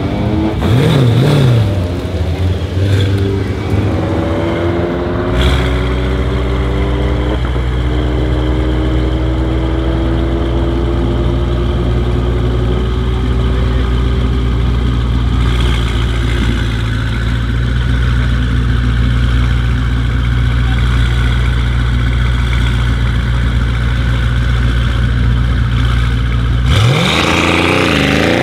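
Mercedes-AMG E63's twin-turbo V8 idling steadily, with the slowly rising note of other engines behind it in the first half. Near the end the idle gives way to quick revving up and down at the start of a drag launch.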